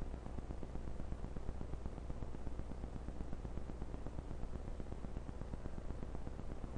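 Steady hiss with a fast, dense crackle and a low hum on a computer microphone input. This is the tapping noise the owner puts down to a sound card that is acting up.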